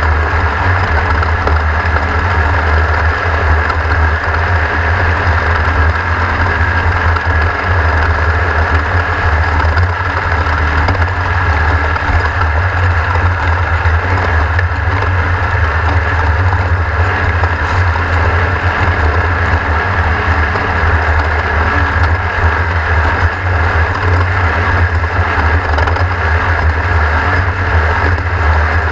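Off-road race vehicle's engine running steadily, with a constant low drone and no marked revving.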